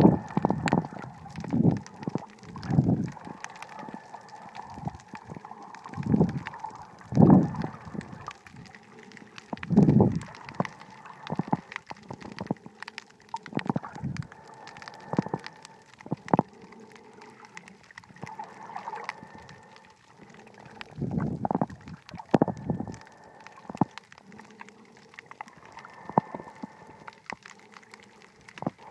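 Underwater sound picked up by a submerged camera: water gurgling and sloshing in irregular surges every second or few, with scattered sharp clicks between them.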